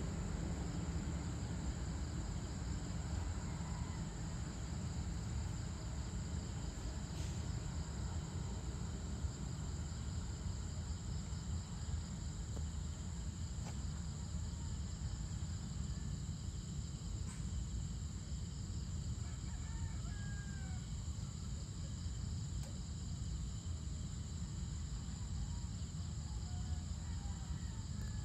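Evening rural ambience: a steady, high-pitched insect chorus over a low rumble, with a rooster crowing faintly about two-thirds of the way through and again near the end.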